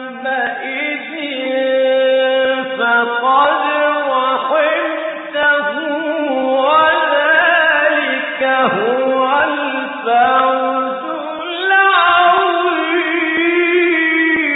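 A Quran reciter chanting in the melodic mujawwad style: a solo male voice holding long notes that bend and glide up and down in ornamented runs.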